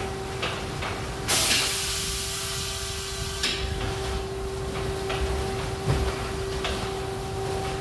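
All-cloth tunnel car wash machinery running with a steady motor hum and scattered knocks. About a second in, a loud hissing spray starts and lasts about two seconds.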